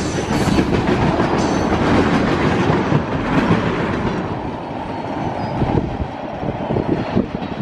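A train rolling past on the tracks, its noise easing off in the second half.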